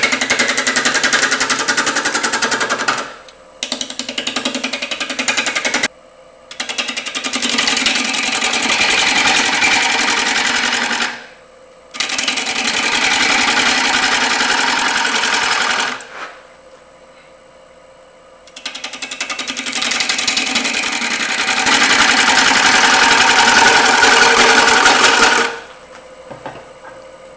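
Bowl gouge cutting the outside of a bark-on natural-edge bowl blank spinning on a wood lathe. There are about five loud cutting passes, each a few seconds long, with a fast, even chatter, as the blank is out of balance. In the short pauses between them the lathe spins on with a faint steady high whine.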